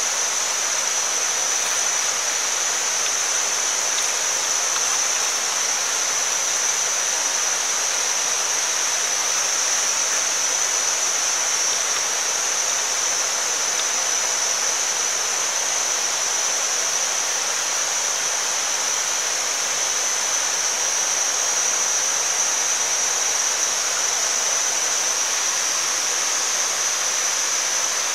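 Oil sizzling on a flat stone heated over a wood fire: a steady hiss, with a steady high-pitched whine above it.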